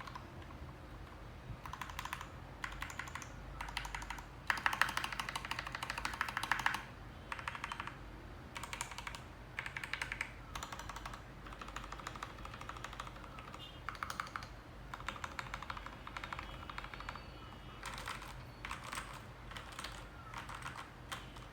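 Typing on a Keycool KC84 mechanical keyboard with lubed Gateron Black linear switches and PBT doubleshot keycaps. The keystrokes come in bursts with short pauses, the densest and loudest run about five to seven seconds in.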